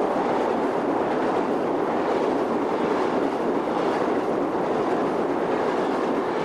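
Shinkansen high-speed train running at speed: a loud, steady rushing noise.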